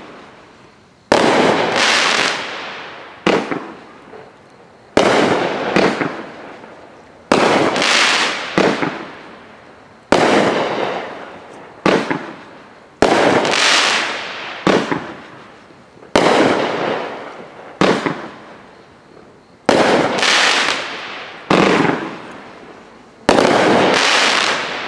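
500-gram multi-shot firework cake (Flashing Fireworks Anaconda) firing its shots one after another. Sharp reports come about every one to two seconds, often in quick pairs, and each fades away over a second or so.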